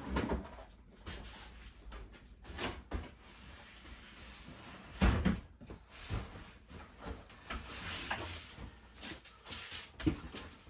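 Boxes and toys being moved and handled: a string of knocks and thumps with rustling between, the loudest about five seconds in and another sharp knock about ten seconds in.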